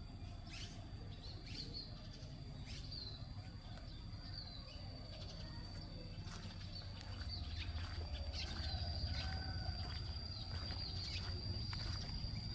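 Outdoor village ambience: small birds chirping in short, quick calls over a steady high-pitched insect drone, with a low steady rumble underneath.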